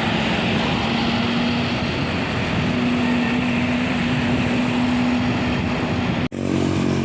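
Tour bus driving past on the road: engine and tyre noise with a steady drone. The sound breaks off abruptly about six seconds in, then traffic noise carries on.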